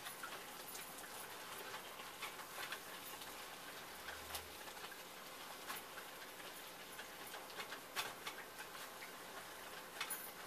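Ground chana dal paste frying in hot ghee and oil, sizzling with many small crackles, while a plastic spatula stirs and scrapes it around the pan; a couple of sharper taps come near the end.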